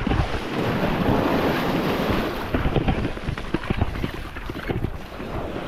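Small waves washing up over sand at the water's edge, with wind buffeting the microphone in irregular low gusts.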